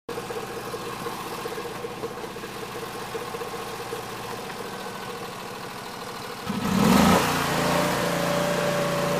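Snow blower engine running steadily, then getting suddenly louder with a rushing surge about six and a half seconds in, and running on steadily at the higher level.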